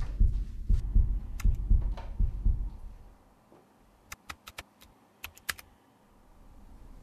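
A deep rhythmic thumping, about two thumps a second, that fades out about three seconds in. Then, after a quiet gap, about eight keystrokes on a computer keyboard, typing in a password.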